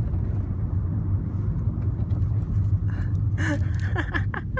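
Steady low road rumble and tyre noise heard inside a moving car's cabin, with a few short voice sounds near the end.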